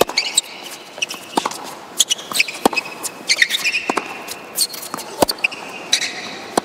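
Tennis rally on an indoor hard court: sharp pops of racquets striking the ball and the ball bouncing, several times a second or so apart, with short high squeaks of shoes on the court between shots.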